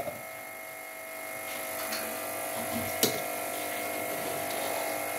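A steady electrical buzzing hum runs on in the kitchen while a metal spatula works chicken and spices in a cooking pot, with one sharp clink of metal on the pot about three seconds in.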